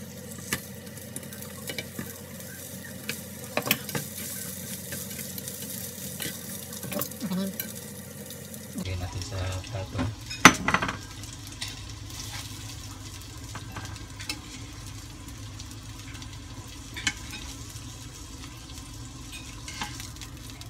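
Onion rings sizzling in oil in a nonstick frying pan while being stirred and turned with tongs and a slotted spatula, with scattered clicks and scrapes of the utensils on the pan. The sizzle fades about nine seconds in, and the sharpest clatter comes shortly after.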